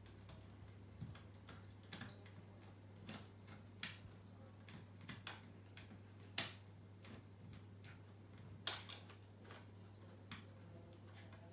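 Small dog gnawing a hard chew bone: irregular sharp clicks and cracks of teeth on the chew, roughly one a second and sometimes two in quick succession, over a steady low hum.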